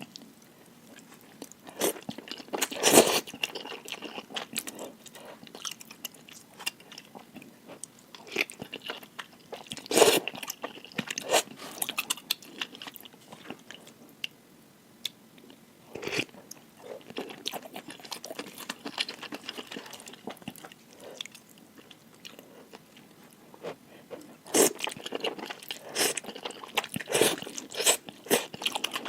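A person eating noodles close to the microphone: chewing with many short wet clicks, and louder bursts about three and ten seconds in and again several times near the end.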